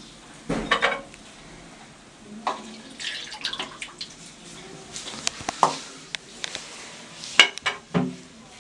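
Liquid poured from a plastic bottle into a hollow plastic toy egg, in irregular splashes and drips mixed with plastic knocks and clicks, a few sharp knocks near the end.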